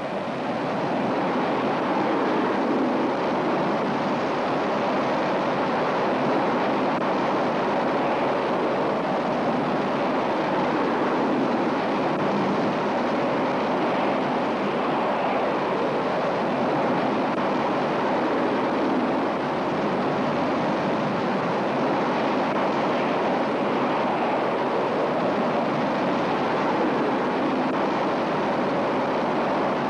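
Jet fighter in flight: a steady, even rush of turbojet engine noise.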